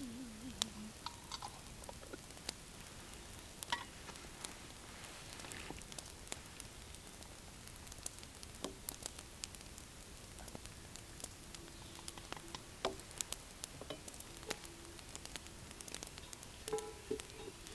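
Borscht simmering and sizzling in a cast-iron Dutch oven over a campfire, stirred with a wooden spoon, with many scattered sharp clicks. Near the end, a few louder knocks and brief ringing as the cast-iron lid is set on the pot.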